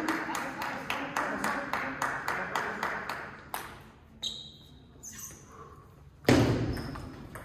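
Table tennis rally: quick, even clicks of the ball on bats and table, about four or five a second, over hall noise. The rally stops about three and a half seconds in, and a loud thud comes near the end.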